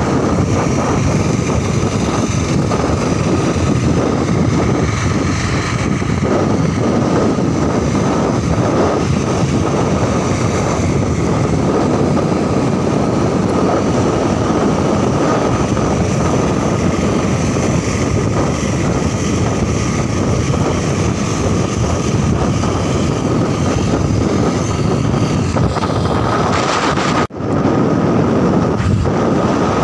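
Motorcycle riding at road speed, its engine running steadily under heavy wind rush on the microphone, with a steady high tone over it. The sound cuts out for an instant near the end.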